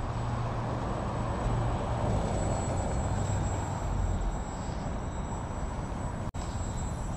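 Electric motor and propeller of a Twisted Hobbys Madbull, a small 3D foam RC plane, hovering and flying low: a steady buzzing hum that swells a little with throttle. The sound cuts out for an instant about six seconds in.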